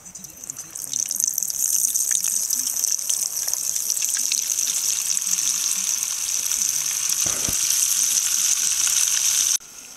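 Stick of butter sizzling in hot frying oil in a cast-iron skillet, a steady high hiss that builds up about a second in and cuts off suddenly near the end.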